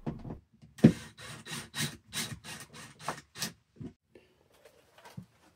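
Handling clicks and knocks as a LEGO car is set onto a 3D-printed wall bracket: a quick run of about ten sharp clicks, roughly three a second, the first the loudest, then a few faint ticks.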